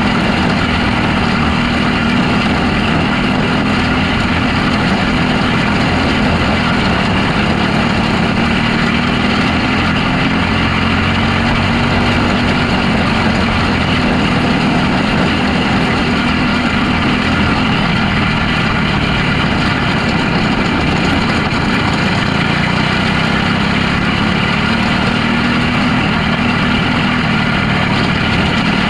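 Micro sprint car's engine heard onboard at racing speed on a dirt oval, running hard without a break. Its pitch rises and falls slowly about once every lap as the car goes through the turns and down the straights.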